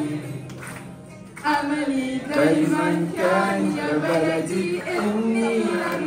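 Mixed choir of school students singing together. The singing falls away into a short pause about a second in, then comes back strongly with held notes.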